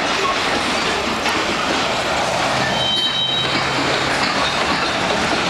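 Freight train of empty gondola cars rolling past, a steady loud noise of steel wheels on rail. About three seconds in, a brief high wheel squeal cuts in.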